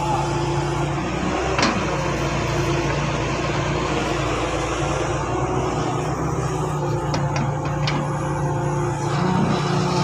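Diesel engines of heavy earthmoving machines running steadily under load, with one sharp click about one and a half seconds in and a few light ticks near the end.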